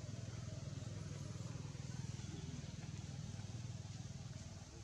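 Low, steady rumble of a motor vehicle engine running, easing off near the end.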